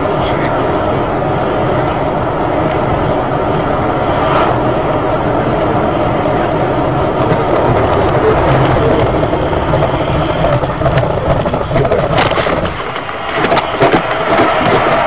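Steady road and tyre noise with engine drone, heard inside a moving car at highway speed. Near the end the noise dips and a few sharp clicks sound.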